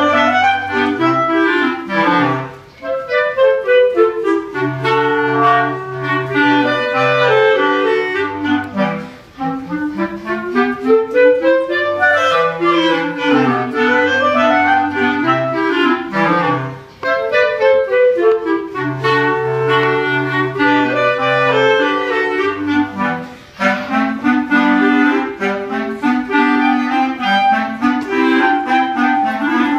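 A clarinet quartet of three clarinets and a bass clarinet playing together. The bass clarinet steps through a low line under the moving upper parts, with short breaks between phrases every several seconds.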